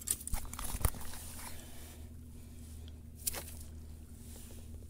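Handling noises on a sandy, rocky lake bank: a few sharp knocks and crunches in the first second and one more about three seconds in, over a steady low hum.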